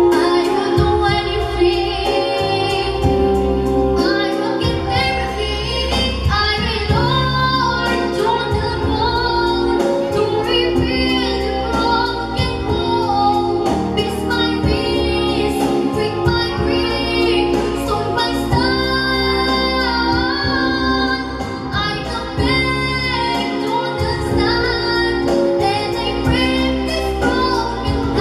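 A young girl singing a ballad into a microphone, amplified over an instrumental backing track with a steady beat.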